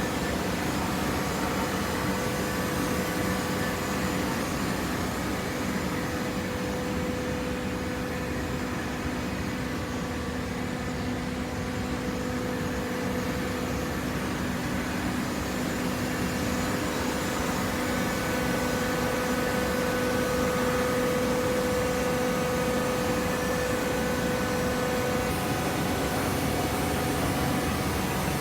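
Hydraulic waste paper baler running: a steady machine hum with a few held tones, growing slightly louder about two-thirds of the way through.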